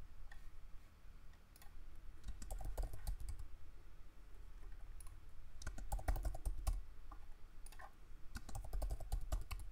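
Computer keyboard typing in a few short bursts of keystrokes, with pauses between them.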